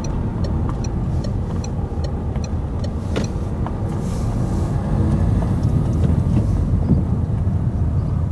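Car being driven along a road, a steady low rumble of engine and tyres heard from inside the car. A faint regular ticking runs about two or three times a second for the first three seconds or so, with one sharper click shortly after.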